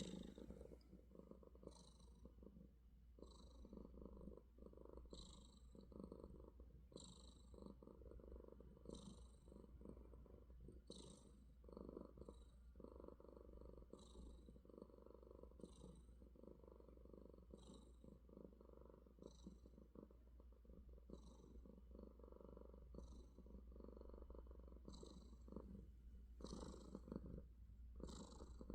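Domestic cat purring steadily, the purr pulsing with each breath, with a short high breathy sound about every two seconds.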